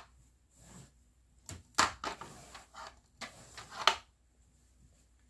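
A round lid knocked and clacked against a plastic activity cube toy: a run of sharp clacks between about one and a half and four seconds in, two of them louder than the rest.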